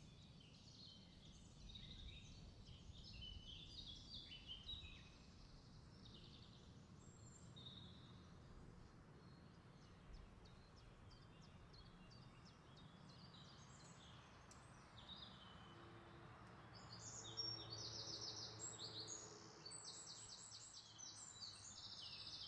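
Near silence, with faint high chirps like distant birds, a little busier near the end.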